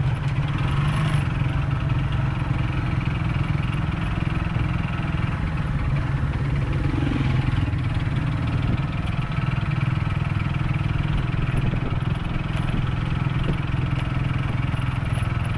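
Motorcycle engine running steadily while riding along, with no sharp changes in speed.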